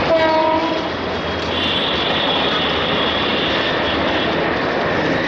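Bangladesh Railway passenger train rolling along the track, a steady rumble of wheels and coaches. A brief pitched tone sounds in the first second. A thin high-pitched wheel squeal rises over the rumble from about a second and a half in to near the end as the train takes the curve.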